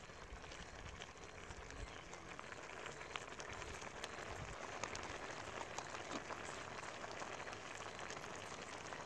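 Minced meat and green chickpeas simmering in an uncovered clay pot over a wood fire: a faint steady sizzle with scattered small crackles.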